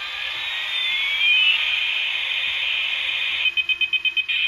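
Toy military truck's built-in electronic siren sound effect from its small speaker: a shrill siren-like tone with pitches sliding together over the first second and a half, then a quick run of about eight beeps near the end.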